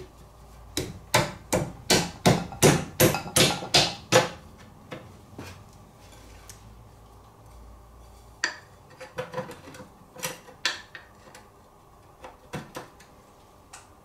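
Shimano Dura-Ace crank spindle being tapped home through a freshly pressed bottom bracket: a quick run of about eleven sharp taps, roughly three a second, then a few scattered lighter knocks and clicks as the crank parts are fitted.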